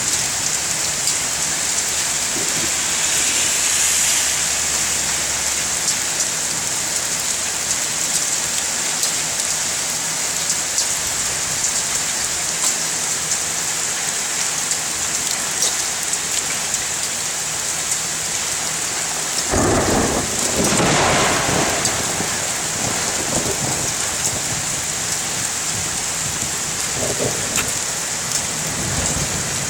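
Heavy rain falling steadily, with a clap of thunder about two-thirds of the way through that rolls on for a few seconds, and a fainter rumble of thunder near the end.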